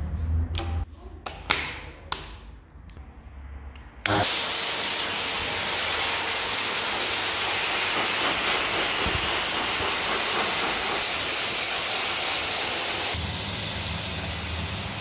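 High-velocity pet dryer switching on suddenly about four seconds in and blowing a steady, loud hiss of air through its nozzle. Before it, a few sharp clicks and knocks.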